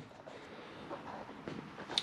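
Faint, even background noise with no distinct sound event: room tone in a pause between speech.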